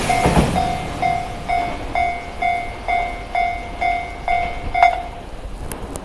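Japanese railway level-crossing warning bell ringing about twice a second over the fading noise of a train that has just passed. The bell stops about five seconds in: the train has cleared and the crossing is about to open.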